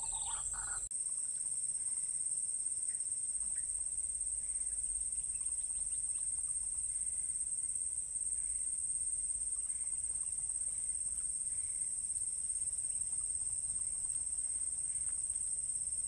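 Steady, high-pitched insect chorus from the surrounding grass: a continuous shrill drone, with a few faint short chirps.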